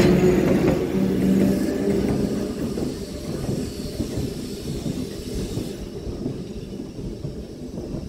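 Electric trolley car rolling away along the track, its rumble and low hum fading steadily as it moves off.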